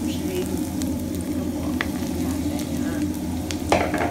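Chopped onion sizzling steadily in hot oil in a nonstick frying pan, stirred and scraped with a slotted wooden spatula. Near the end a sudden louder burst as dried shrimp is tipped into the pan.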